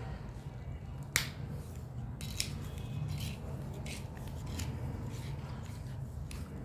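A few sharp clicks and short scrapes of a wrench and the metal parts of a soda machine's syrup connector being handled as it is taken apart, the loudest about a second in, over a steady low hum.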